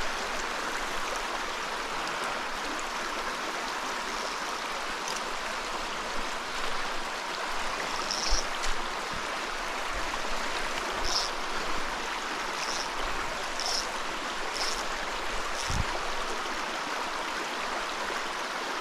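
Small mountain trout stream running over rocks: a steady, even rush of water, with a few faint short high blips and soft low thumps in the second half.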